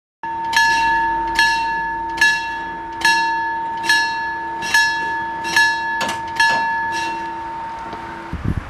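Railway level-crossing warning bell ringing, about one strike every 0.8 seconds over a steady ringing tone, and cutting out about eight seconds in.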